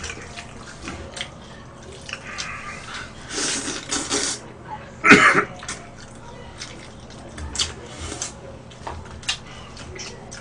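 Eating jjajangmyeon (black-bean noodles) with chopsticks close to the microphone: wet slurping and chewing with small clicks throughout. There is a longer noisy slurp about three and a half seconds in, and the loudest sound is a short burst about five seconds in.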